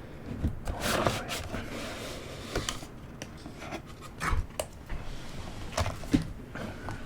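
Hands handling the cardboard and card packaging of a Pokémon Elite Trainer Box: a brief rustling scrape about a second in, then scattered light taps as items are moved and set down.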